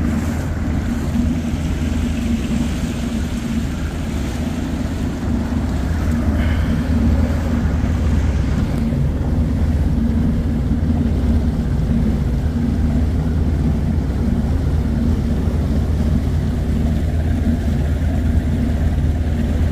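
A bass boat's 90-horsepower outboard motor running steadily with the boat underway, an even low drone with no breaks.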